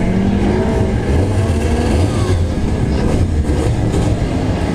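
Rally car engine running with a deep, uneven rumble that holds at a steady loudness.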